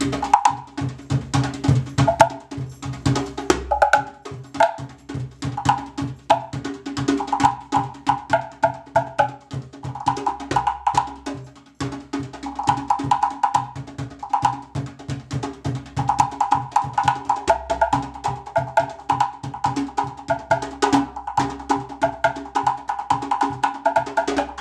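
Timbre Jam wooden tone-box drum, three wooden boxes struck with drumsticks, played in a fast rhythmic groove of pitched wooden knocks, with a brief pause about halfway through.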